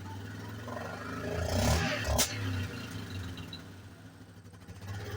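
Yamaha Grizzly 660's single-cylinder engine idling, then revved about a second and a half in, ending in a sharp pop before dropping back to idle. This is the pop and stutter under throttle that the owner suspects is a timing or ignition problem.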